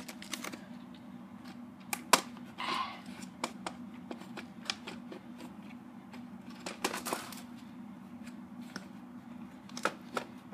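VHS tapes in plastic cases being handled: scattered clicks, taps and short rustles, with a sharper click about two seconds in, over a steady low hum.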